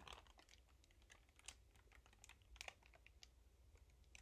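Near silence, with a few faint scattered ticks from a clear plastic bag of granola being handled.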